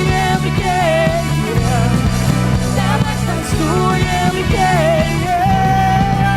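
A live band playing rock-style contemporary worship music: a melody line that bends and wavers in pitch over full, steady band backing with a regular beat.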